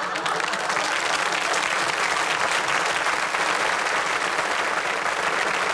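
Studio audience applauding steadily at the end of a comedy routine.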